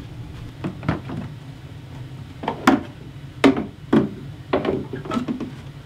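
Hard saddlebag being handled and set onto its mounts on a Harley-Davidson Electra Glide, with a series of knocks and clunks: one about a second in, then several in quick succession over the next few seconds.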